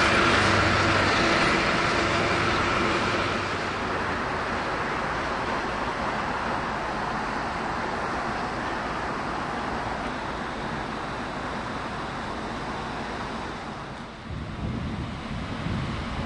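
DR1A diesel multiple unit pulling away under power, its engine running with a steady hum that fades as the train draws off into the distance. About 14 s in the sound cuts to a different, low rumble.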